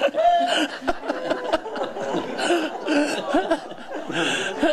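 A group of people laughing together, several voices chuckling at once, in response to a joke.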